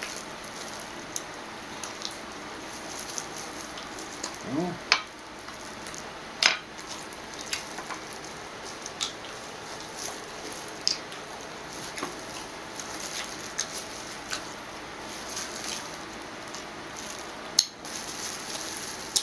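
Close-up eating of raw cucumber spears: sharp crunches every second or two between chewing, over a steady background hiss.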